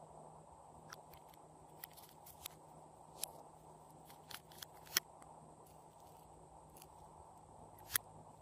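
Faint scattered clicks and light taps of a nail-polish brush and its cap knocking against the glass polish bottle and dabbing the slime, about eight in all, the loudest about five seconds in and another near the end, over a low steady hiss.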